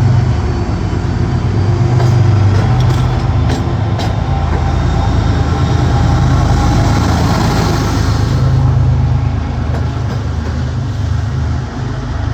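MBTA HSP-46 diesel locomotive with its Cummins QSK95 engine rumbling under power as a commuter train pulls out. A few sharp clicks come about two to four seconds in, and a hiss swells and fades around the middle.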